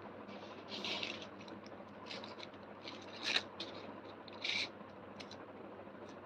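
Faint handling noise from hands working paper sticker labels: a few short scrapes and rustles, the loudest with a sharp click a little after three seconds in.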